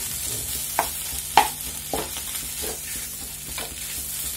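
Wooden spatula stirring and scraping mashed-potato and paneer stuffing around a nonstick frying pan, with irregular knocks against the pan, the loudest about a second and a half in, over a light sizzle of frying.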